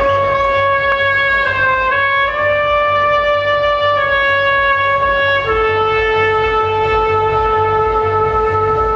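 Recorded dance music opening with long held notes from a sustained melody instrument. The notes shift a little in pitch for the first five seconds or so, then settle on one lower note held for about four seconds, over an even low pulse.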